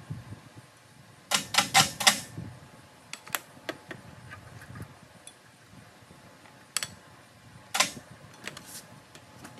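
Metal clinks and rattles as the Ford Model A differential and its hoist chain are handled. A quick run of four sharp clinks comes about a second in, then scattered single clinks, one of them loud near the end.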